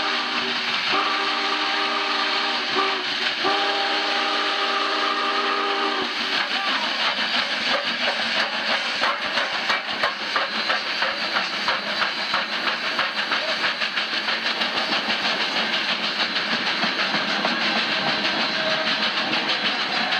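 Union Pacific 3985, a 4-6-6-4 Challenger steam locomotive, sounds its whistle, a chord of several tones, in a few blasts broken by short gaps for about the first six seconds. The locomotive and its train then pass close by with a rapid, dense clatter.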